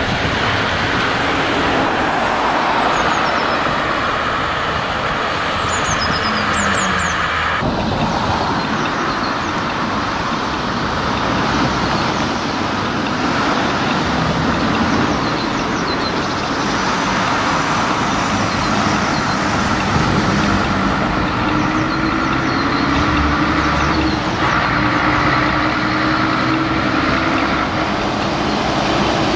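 Steady outdoor road-traffic noise from passing vehicles, with a few short high chirps. The sound shifts abruptly about eight seconds in.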